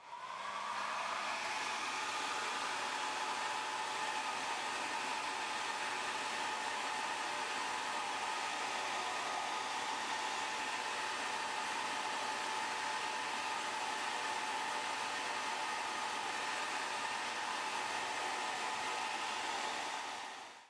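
Heat gun blowing hot air steadily, a constant airy hiss with a faint whine, warming the adhesive that holds the phone's glass digitizer to the midframe. It fades in at the start and out at the end.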